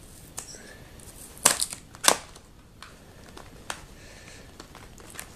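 Seal stickers being peeled off a cardboard retail box by fingers, giving a few short, sharp crackles of paper and cardboard, the clearest about a second and a half and two seconds in.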